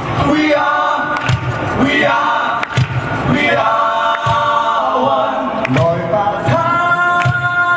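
Live band playing a song on acoustic guitar, electric bass and cajón, with a group of voices singing a wordless, chant-like refrain over a steady beat. The voices hold a long note near the end.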